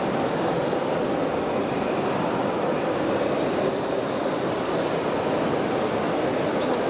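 Steady, even din of a busy exhibition hall, with no distinct events standing out.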